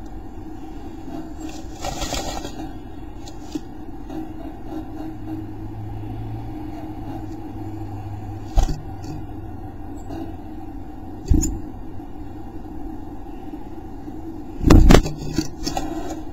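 Carolina chickadee moving about inside a wooden nest box, rustling and scraping the moss nest material, with a few sharp knocks against the wood, the loudest near the end. A steady low hum lies underneath.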